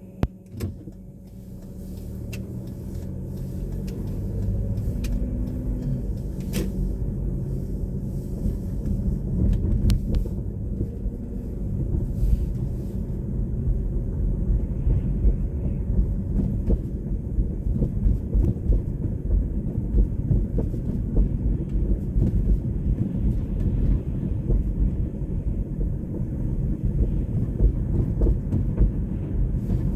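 A car driving: low engine and road rumble that builds over the first four seconds, then runs steadily. A sharp click comes about half a second in.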